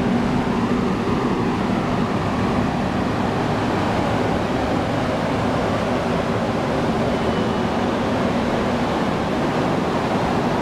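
Ferry's machinery running with a steady low hum under a constant rushing noise, like air from engine-room and ventilation fans.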